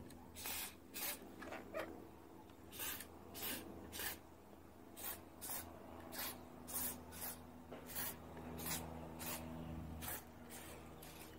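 Short squirts of WD-40 from an aerosol can through its straw onto the recoil starter pulley of a petrol lawn mower, lubricating a sticking pull cord: a string of brief hissing bursts, irregularly spaced at about two a second, over a faint low hum.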